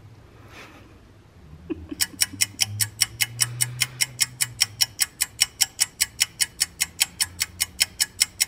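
Clock ticking at an even beat of about four ticks a second, starting suddenly about two seconds in, over a low hum.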